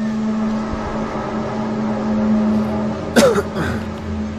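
Unexplained loud drone from the sky: one steady pitched tone with many overtones. About three seconds in, a sharp crack and a falling groan, then a lower hum.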